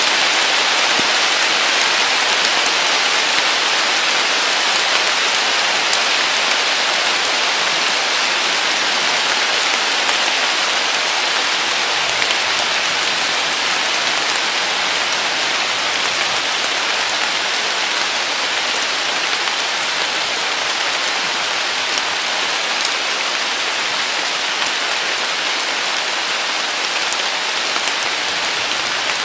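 Heavy summer rain falling on a weeping willow and the grass beneath it: a steady, even hiss with faint scattered drop ticks.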